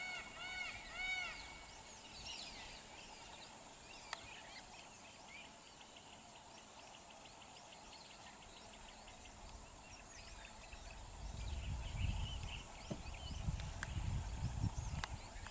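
Outdoor bird chorus: small birds repeating short arched chirping calls, then scattered chirps and a quick run of ticks, over a steady high hiss. In the last few seconds, low rumbling thumps come in and are the loudest sound.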